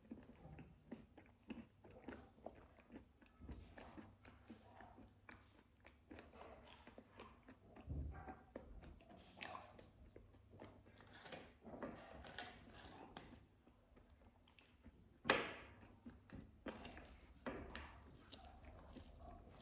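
Close-miked chewing and mouth sounds of a person eating, with irregular wet clicks and occasional crunchy bites. One louder bite or smack comes about 15 seconds in.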